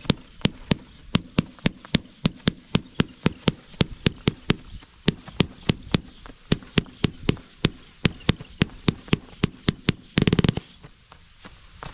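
Consumer fireworks cake firing its 'spitting silver wave falling leaves with blue' shots in quick sequence, about four to five sharp pops a second. About ten seconds in, the cake ends with a dense half-second volley of rapid pops.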